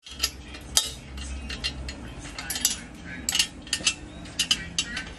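Irregular sharp metallic clinks and taps of a spanner and bolts against a turbocharger and its tubular steel exhaust manifold while the turbo is bolted on by hand.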